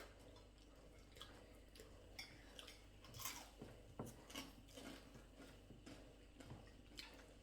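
Faint chewing and mouth sounds of people eating, with scattered small clicks and smacks.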